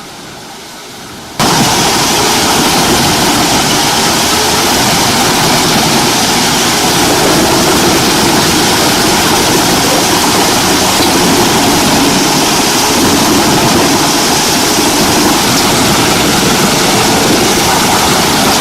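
Wood chipper running, a loud, dense, steady noise that starts suddenly about a second and a half in after a faint hiss.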